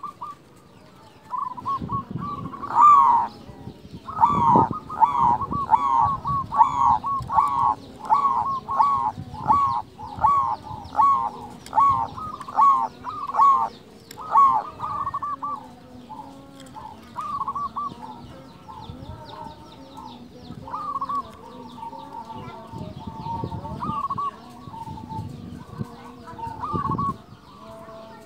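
Zebra dove (perkutut) singing its cooing song: a fast run of short, clipped coos about two a second for some twelve seconds, then a few scattered coos. A low rumble sits under it at times.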